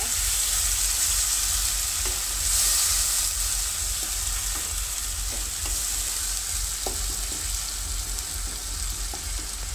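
Onion-tomato masala paste, thinned with water, sizzling in oil in a non-stick karai, with a spatula stirring and scraping through it. A steady hiss with a few light scrapes and a low steady hum underneath.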